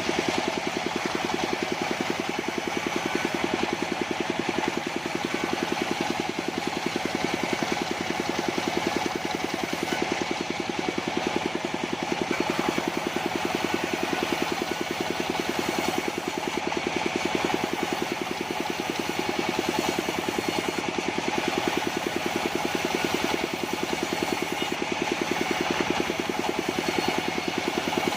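Engine of a mobile sawmill running steadily at an even speed, with a fast, even pulse and no change in pitch or level.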